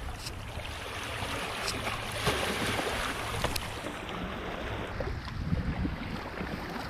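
Sea water washing in and out among shoreline rocks, swelling louder about two seconds in, with wind buffeting the microphone.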